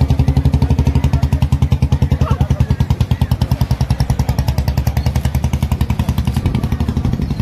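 An engine running steadily close by, a rapid even thumping of about ten beats a second.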